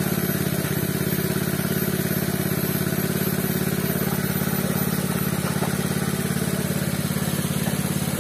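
Small Robin single-cylinder petrol engine running steadily at constant speed, driving the pepper-washing setup.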